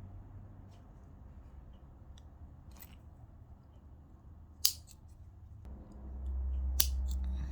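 Two sharp snips of scissors about two seconds apart, the first the louder, over light handling noise. A steady low hum sets in shortly before the second snip.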